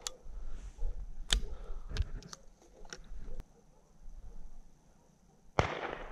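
A string of short sharp clicks and knocks, then about five and a half seconds in a single louder sharp crack that rings out briefly.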